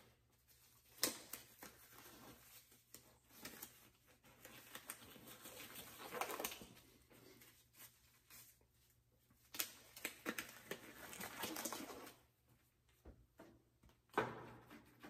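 Nitrile gloves being pulled on and worked onto the hands: faint rubbery rustling and scattered clicks, with a sharp snap about a second in and a louder rustle near the end.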